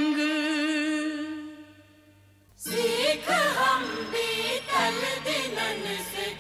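Devotional song: a singer holds a long note with vibrato that fades away about two seconds in. After a brief pause the music starts again, with a winding sung melody over steady sustained accompaniment notes.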